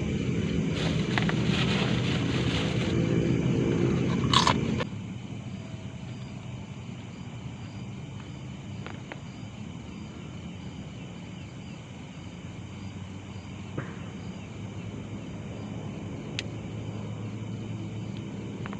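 Night-time forest ambience: insects chirping in a steady, evenly pulsing rhythm over a low hum. For the first five seconds a louder rustling noise covers it, ending in a sharp click.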